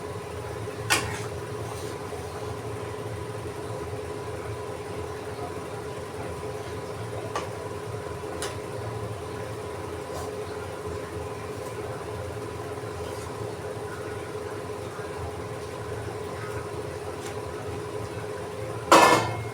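Steady machine hum with a fixed tone, such as a kitchen fan motor, broken by a few light clicks. A loud, short burst of noise comes near the end.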